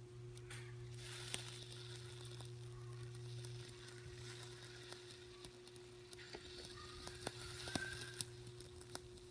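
Microwave oven transformer with a single-turn thick-wire secondary humming under heavy load while the short iron wire across it melts and burns, with a sizzling crackle and sharp pops as sparks fly. The hum weakens about three and a half seconds in, and the pops come mostly in the second half.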